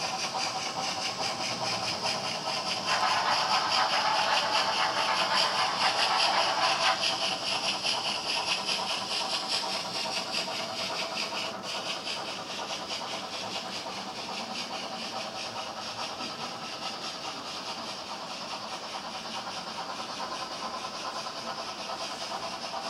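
Model trains running on the layout: the locomotive's small electric motor whirring steadily and the wagons' wheels clicking and rattling over the track, a fine rapid clatter. The sound grows louder for about four seconds a few seconds in, then settles back to a steady run.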